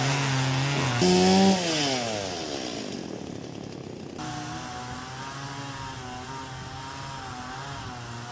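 Chainsaw cutting through the roots of an uprooted tree: it runs steadily, revs up loudly about a second in, then winds down. After a short lull a chainsaw runs again, quieter and wavering, from about four seconds in.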